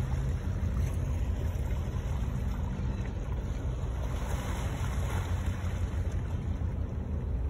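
Shoreline ambience: a steady low rumble with small waves washing against rocks.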